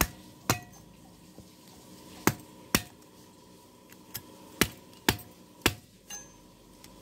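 Sharp knocks of a curved knife blade striking a coconut's hard shell and chipping it away from the white kernel: about seven separate blows, unevenly spaced.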